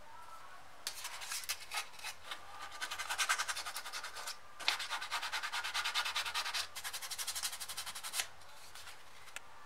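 Sandpaper rubbed quickly back and forth over the edge of a thick cowhide leather piece, about five or six scratchy strokes a second, stopping briefly about halfway and then going on.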